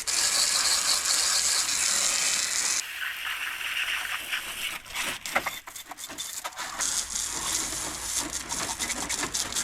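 Water spraying onto a muddy mountain bike frame, a loud hiss that cuts off about three seconds in. Scattered clicks, rattles and scrapes follow as the bike is handled, and a fainter hiss returns near the end.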